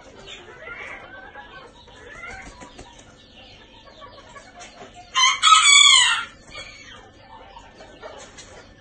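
Serama bantam cockerel crowing once, a short, loud crow about five seconds in, with faint softer calls before it.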